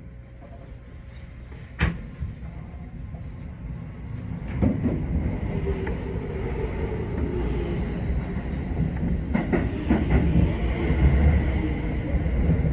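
Keio Line electric commuter train running on the rails, its low rumble growing louder from about four seconds in, with a few knocks and a faint high whine. A single sharp click comes near two seconds in.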